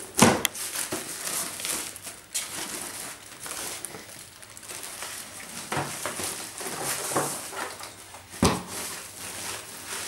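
Plastic bag and thin protective wrapping around a computer monitor rustling and crinkling as hands handle and peel them back, with sharper crackles just after the start and again near the end.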